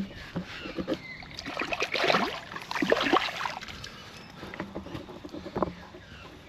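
Water splashing and sloshing as a small caught carp is dipped and swished in river water to rinse it, busiest in the middle and trailing off into a few small splashes.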